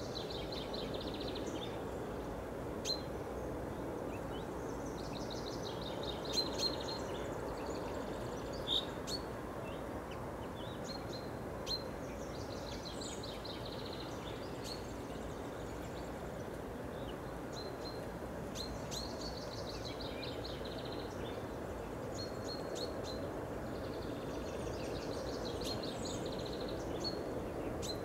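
Small songbirds singing repeated chirping and trilling phrases over a steady low background noise, with a few sharp clicks in the first half.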